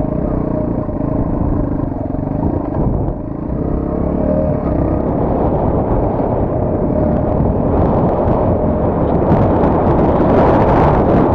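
Qlink XF200 motorcycle running under way, with heavy wind noise buffeting the microphone; the wind noise grows louder and harsher in the last few seconds.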